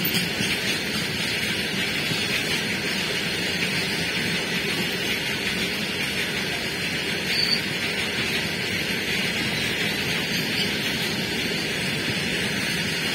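Loaded freight train of open-top coal wagons rolling steadily past: the continuous noise of steel wheels running on the rails, with one brief high squeal about seven and a half seconds in.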